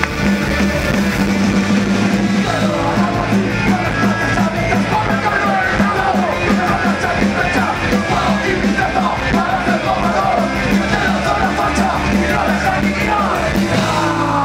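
Punk rock band playing live: electric guitars, bass and drums with yelled vocals.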